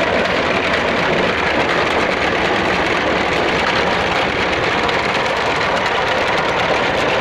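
Old Al-Ghazi tractor's engine running with its front-mounted wheat reaper working, a loud, steady mechanical noise with no pauses.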